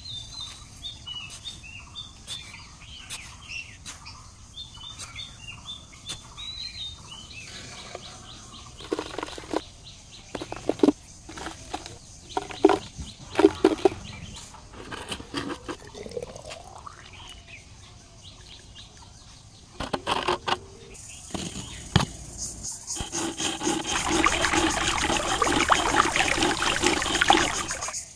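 Small birds chirping for the first several seconds, then scattered knocks and scrapes of handling in sand. Near the end, several seconds of water pouring steadily from a miniature hand pump's spout into a small metal bowl.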